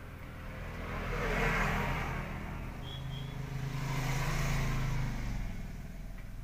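Engine noise of a passing motor vehicle, swelling twice and fading out about five seconds in.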